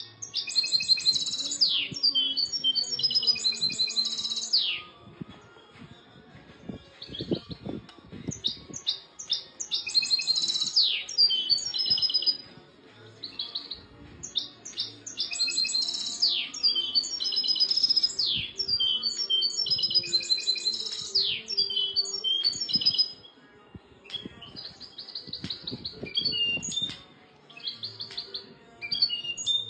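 European goldfinch singing: long phrases of rapid high twittering and trills with quick downward-sliding notes, broken by a few short pauses.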